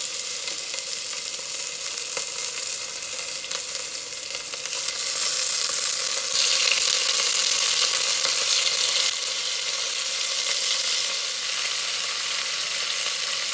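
Chunks of raw beef sizzling in hot olive oil in a heavy enamelled pot as they are added with tongs, the sizzle growing louder about halfway through as more pieces go in. A few light clicks along the way.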